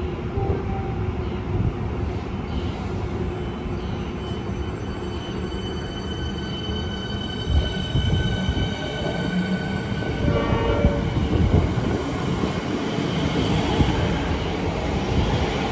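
Melbourne Metro suburban electric train pulling out of the platform, with a steady electric whine over the low rumble of wheels on rail.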